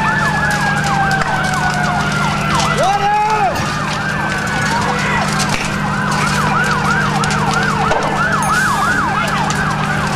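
Emergency-vehicle sirens of responding fire apparatus, several overlapping: a fast yelp of about three or four sweeps a second over a slower falling wail. A brief horn blast sounds about three seconds in, and a steady low hum runs underneath.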